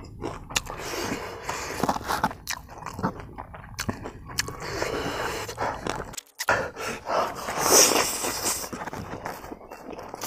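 Close-miked eating sounds from a man: chewing clicks and hissing, wheezy breaths in and out through the mouth from the burn of a very hot dry king chili (naga pepper). About eight seconds in comes a loud, sharp sucking hiss, and the sound cuts out for a moment a little after six seconds.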